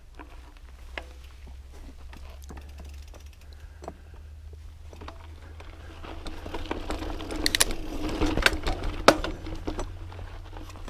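Specialized Camber Comp 650b mountain bike rolling over a rocky dirt trail: tyres crunching on grit and the bike rattling and clicking as it hits rocks, getting louder and busier from about six seconds in with several sharp knocks.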